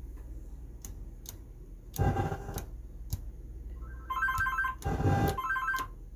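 Test playback from a repaired Marantz 2270 stereo receiver: a few sharp clicks, two short bursts of noisy sound, and about two seconds of a rapid two-tone electronic trill like a telephone ringtone, over a steady low hum.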